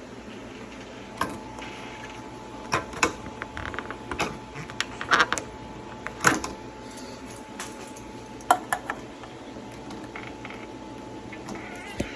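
Irregular clicks, snaps and knocks of plastic and metal parts as a Samsung microwave oven door is pried apart by hand, some in quick clusters of two or three.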